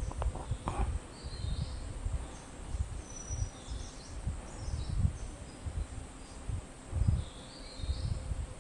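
Mountain forest ambience: a steady high insect drone, with scattered short high bird calls every second or so. Repeated low rumbling bumps on the microphone are the loudest sound.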